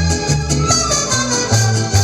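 Instrumental break between verses of a Spanish-language love song, with a bass line stepping from note to note under a steady beat.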